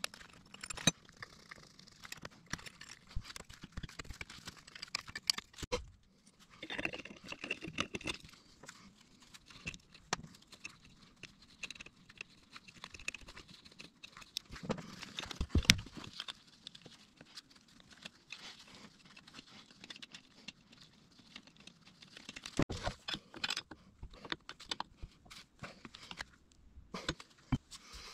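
Gloved hands handling and fitting metal turbocharger parts, a bracket and the vacuum actuator on the turbo housing, over a cloth: irregular clicks, small metal knocks and rustling, with the sharpest knock about halfway through.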